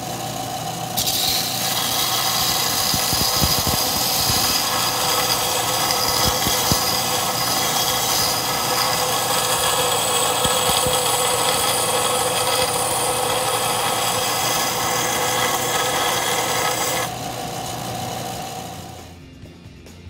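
Central Machinery bench belt sander running, with a loud hiss as the bird's wire feet are ground flat against the abrasive belt from about a second in. The grinding stops a few seconds before the end, and the motor runs on alone briefly before winding down.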